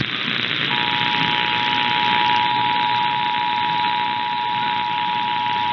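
Emergency Alert System two-tone attention signal, two steady tones near 853 and 960 Hz sounding together, beginning a little under a second in, over a steady hiss of radio reception.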